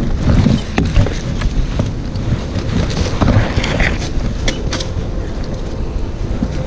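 Wind buffeting the microphone, a heavy low rumble, with a few sharp clicks scattered through it.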